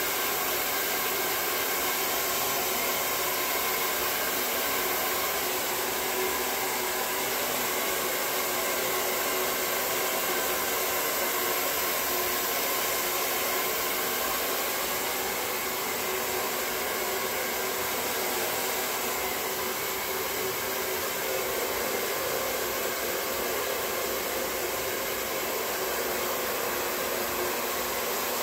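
Handheld hair dryer running steadily, blowing air through hair as it is blow-dried.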